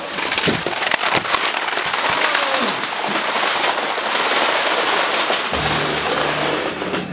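Hundreds of plastic DVD cases, CD cases and VHS tapes toppling one into the next in a domino chain: a dense, continuous rattling clatter of many small clicks.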